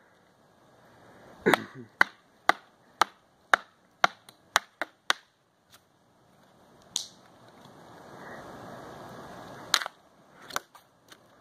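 Sharp clicks, about two a second, from a cheap dollar-store toy being worked over and over after it has started to rip, followed by a few seconds of faint steady noise with a couple more clicks near the end.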